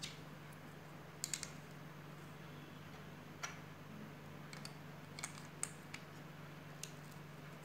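Plastic LEGO bricks clicking and tapping as they are handled and pulled apart: about eight scattered sharp clicks, a quick pair of them a little over a second in. A faint steady low hum runs underneath.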